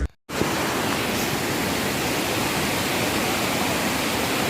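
Waterfall rushing: a steady, dense hiss of falling water that starts abruptly after a split-second gap.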